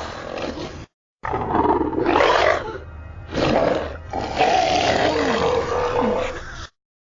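Skullcrawler movie-monster sound effects: three separate roars, with abrupt cuts to silence between clips about a second in and near the end.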